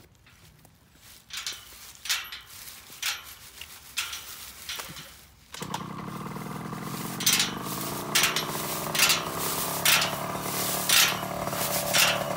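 Footsteps crunching through dry leaves and grass. About halfway through, the small two-stroke single-cylinder engine of a KTM 50 SX youth dirt bike cuts in suddenly and runs steadily, with crunching footsteps about once a second over it.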